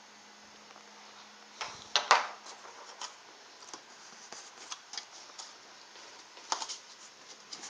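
Cardboard shipping box being cut and pried open by hand: a cluster of scrapes and rustles about two seconds in, the loudest part, then scattered short clicks and scrapes.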